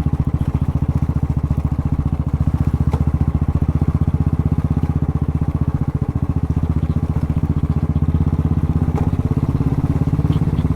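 A vehicle engine running steadily at an even speed, with a fast, even pulse of firing strokes.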